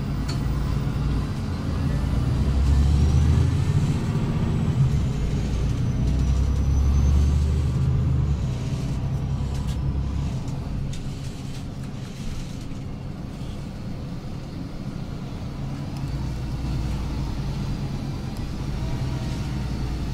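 City bus underway, heard from inside the passenger cabin: a steady low engine and road rumble. It is louder through the first half and eases off somewhat after about eleven seconds.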